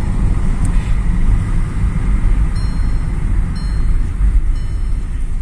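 A car driving: a steady, loud low rumble of engine and road noise.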